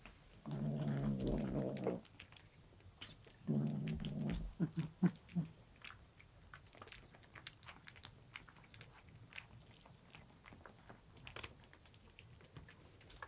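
A kitten chewing a treat, with many small crunching clicks. Twice, once about half a second in and again a few seconds later, a kitten gives a low, drawn-out growl, guarding the food.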